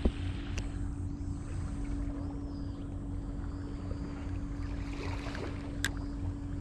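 A steady low hum over a rumble of wind on the microphone, with a thump right at the start and a single sharp click near the end.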